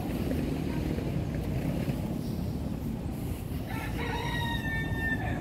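A rooster crowing once: a single drawn-out crow of about a second and a half, starting past the middle and ending just before the close, over a steady low rumble.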